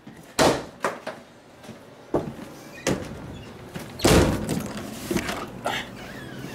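A door banging and knocking, with several thumps as it is pushed open, the loudest about four seconds in. A low steady hum starts near the end.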